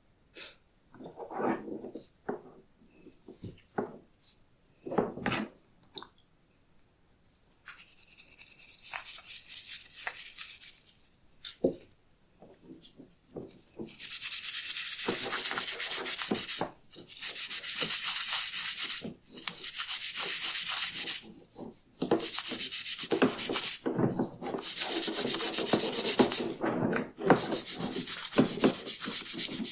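A few seconds of scattered handling knocks and clicks, then repeated abrasive rubbing strokes by hand on the old belt, each lasting one to three seconds with short pauses between them.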